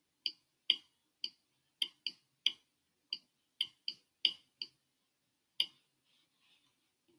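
About a dozen sharp, separate key clicks at an uneven pace, as when keys are pressed to work out a sum, stopping about two-thirds of the way through.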